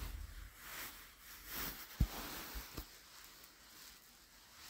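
Faint rustling and handling noise close to a phone's microphone, with a sharp knock about two seconds in and a softer one near three seconds.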